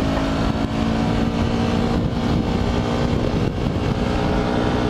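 Motorcycle engine running at a steady cruise of about 65 km/h, a constant hum under heavy wind and road noise.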